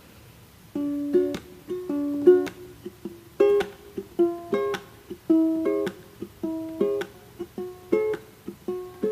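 Background music: a plucked-string instrumental melody played note by note, starting about a second in.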